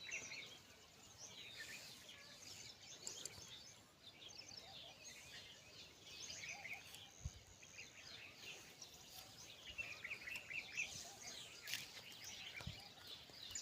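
Faint, continual chirping of several birds over quiet outdoor background noise, with two soft low thuds, about seven and twelve seconds in.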